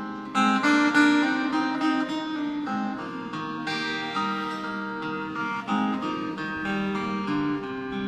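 Acoustic guitar picking the notes and chords of a song's instrumental introduction.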